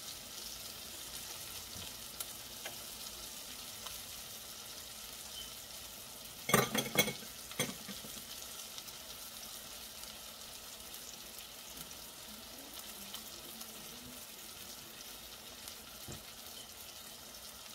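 Plant-based burger patties sizzling steadily in a stainless steel frying pan. A brief clatter of a few sharp knocks comes about six and a half seconds in as a wooden spatula is handled at the pans.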